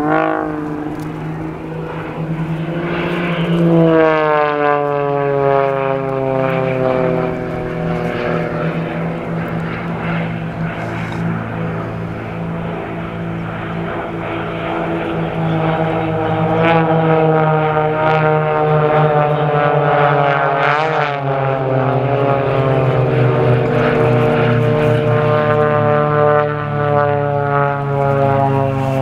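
Extra 300 aerobatic planes' piston engines and propellers droning overhead, with more than one aircraft heard at once. The pitch drops sharply as they pass, about four seconds in, then climbs and drops again around twenty-one seconds in.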